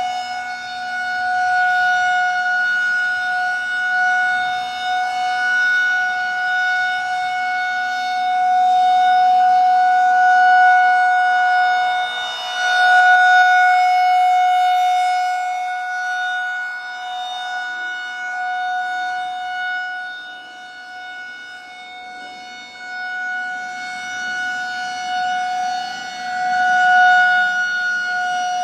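Federal Signal 2001-130 rotating outdoor warning siren sounding a steady single tone at full speed. Its sound swells and fades slowly as the rotating horn turns toward and away.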